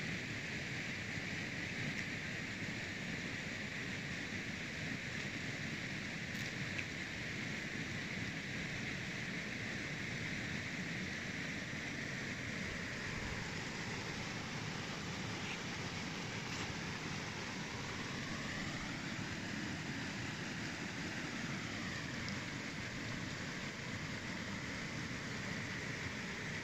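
Steady rushing of a small mountain stream, an even unbroken water noise.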